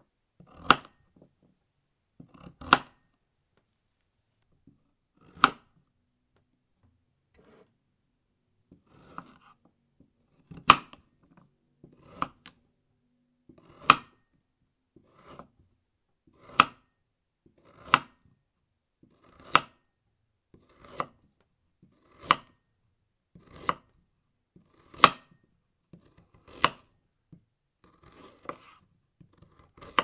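Kitchen knife chopping vegetables on a cutting board: single sharp chops, a few spaced out over the first ten seconds, then steadily about one every one and a half seconds. Many chops have a short crunch of the blade through the vegetable just before it hits the board.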